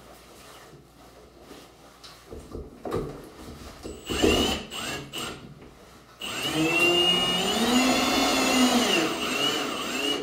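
Cordless drill driving screws into the wall. It gives a few short trigger bursts, then from about six seconds in runs steadily, its pitch rising and falling as the trigger is worked.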